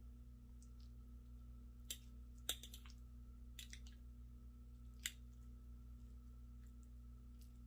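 A metal fork clicking against a glass bowl a handful of times while scooping grits and eggs, the loudest clicks about two and a half and five seconds in, over a steady low hum.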